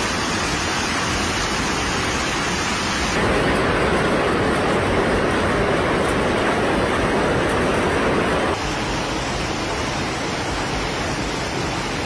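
Heavy hailstorm: hail and rain pelting down in a dense, steady rush with wind. The sound changes abruptly about three seconds in and again past eight seconds as the footage cuts between recordings.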